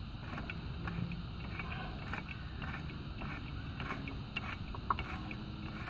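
Hand-lever grease gun being pumped, its lever and nozzle giving irregular short clicks, with one sharper click about five seconds in. It is forcing grease into a mini excavator's track tensioner to tighten the rubber track.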